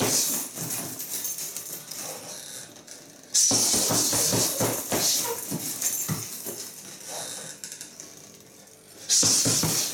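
Wrapped fists punching a leather Boon heavy bag in fast combinations: runs of thuds with a jingling rattle on each hit. The combinations come in bursts, one at the start, a new one about three and a half seconds in, and another about nine seconds in.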